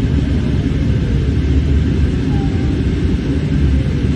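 Steady low rumble of an airliner's cabin noise in flight, from the engines and the air rushing past the fuselage, heard inside the cabin.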